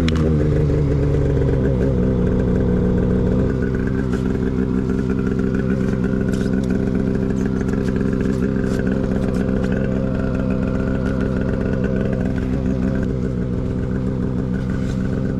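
Polaris 850 Khaos snowmobile's two-stroke twin engine idling steadily, its pitch easing down a little in the first second and then holding even.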